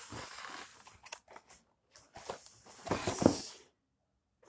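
Cardboard toy box being handled and turned over on a table: rustling and sliding with a few sharp clicks and knocks, the loudest a thump a little after three seconds in.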